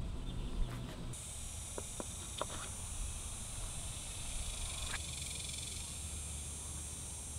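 Steady, high-pitched buzzing of insects, with a few light clicks.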